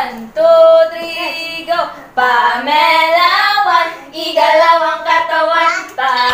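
Women's voices singing a song together, in phrases about two seconds long.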